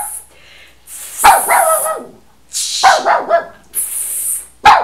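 A woman shushing again and again, and a small dog, a chihuahua, answering with a short bark after each shush, three times. The dog keeps barking for no reason even though it is being told to be quiet.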